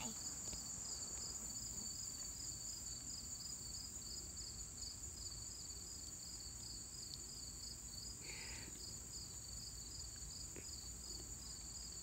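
Background insect chorus, crickets: a steady high-pitched trill with a pulsing chirp just below it, about three chirps a second.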